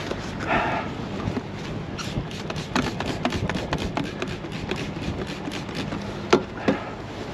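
Hand trigger spray bottle squirted over and over onto a truck's side panel: a quick run of short sprays from about two seconds in to about six seconds. Two louder clicks follow near the end.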